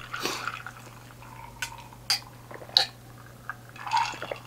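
Ice cubes clinking in a drinking glass, a few separate sharp clinks, as the iced drink is lifted and drunk, with a soft swallow near the end.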